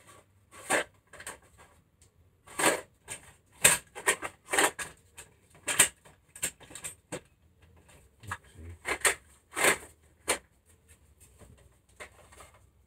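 Small boxes of parts being rummaged through by hand: a string of irregular sharp clicks and clatters as the pieces are handled and moved about.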